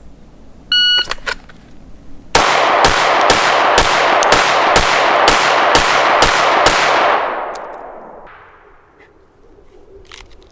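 Shot-timer start beep, then about a second and a half later ten rapid shots from a Sig P365 XL 9mm pistol at roughly two a second, the echo fading after the last shot.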